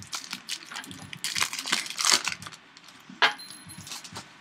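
Foil wrapper of a Topps Strata football card pack being torn open and crinkled by hand, a dense run of sharp crackles and rustles, with one sharper snap a little after three seconds in.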